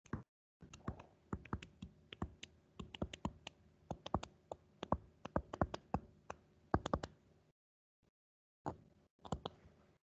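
Stylus tip clicking and tapping on a tablet or touchscreen as an equation is handwritten: a rapid, irregular run of sharp little ticks that stops about three-quarters of the way through, followed by a few more.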